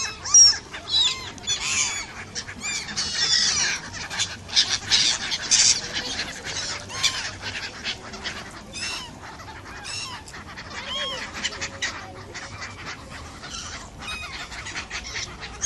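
A flock of black-headed gulls calling over water: many short overlapping calls, busiest in the first six seconds and thinning out after.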